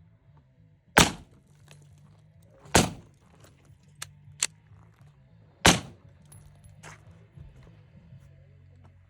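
Three loud gunshots, about a second in, near three seconds and just before six seconds, each dying away quickly, with a few fainter sharp cracks between them.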